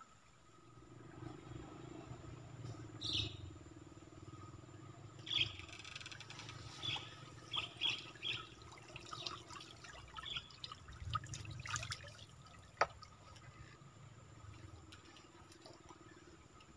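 Water trickling and dripping off a bamboo lift net as it is raised out of a muddy stream, with small splashes, a low rumble underneath, and one sharp knock about three-quarters of the way through.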